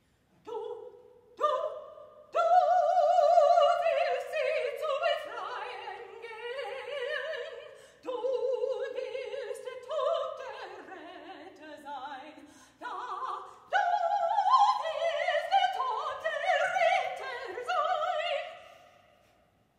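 A woman singing unaccompanied in operatic style, high and with a wide vibrato, in long held phrases that break off a couple of times and fade out near the end.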